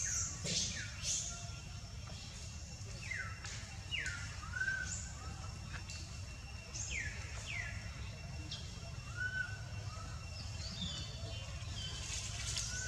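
Bird calls: a series of short, sharp whistled notes, each sweeping quickly downward in pitch, repeated every second or two, with a faint cluster of higher notes near the end. Under them is a faint, steady, high thin tone and a low outdoor rumble.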